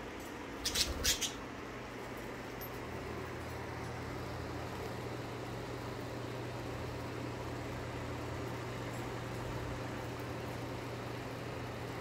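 Steady low mechanical hum with a faint hiss throughout, and two short sharp sounds close together about a second in.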